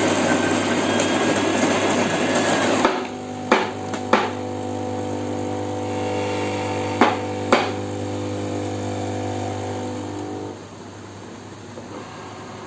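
Krups EA8080 espresso machine's steam nozzle hissing loudly, then cutting off abruptly about three seconds in. A steady machine hum follows, broken by two pairs of sharp knocks, and fades out near the end.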